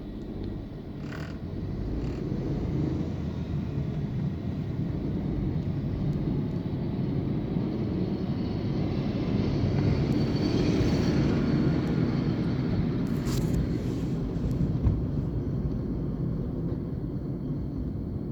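Bulldozer's diesel engine running with a low rumble that builds to its loudest about halfway through, then eases slightly, with a faint high whine near the middle.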